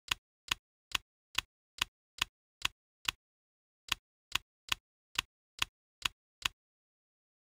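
Typewriter key-strike sound effect, one sharp click per typed letter: eight clicks at a steady pace, a short pause, then seven more.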